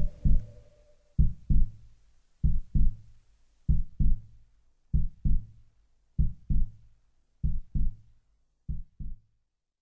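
A slow heartbeat on the soundtrack: paired low thumps, lub-dub, about one pair every one and a quarter seconds, slowly growing fainter. A held musical tone dies away about a second in.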